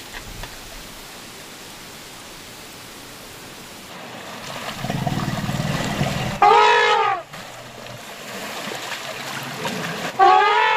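Asian elephants trumpeting twice, each a loud call of just under a second that rises and then falls in pitch, about four seconds apart, over the sloshing of water as they wade.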